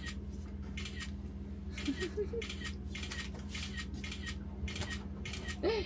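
Repeated short scraping or snipping strokes, about two a second, over a steady low hum.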